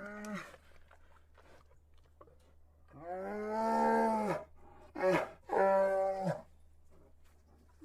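Bear calling: four drawn-out, moo-like bawling calls, a short one at the start, the longest about a second and a half from about three seconds in, then a brief one and a longer one just after five seconds. A steady low hum runs underneath.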